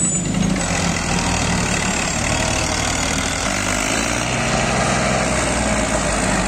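Massey Ferguson tractor's diesel engine running steadily as it pulls a heavily loaded trolley through soft mud, working hard enough that the front wheels lift.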